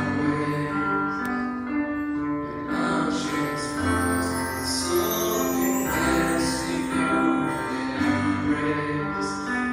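Vocal group singing a worship song into microphones, with instrumental accompaniment of long held notes.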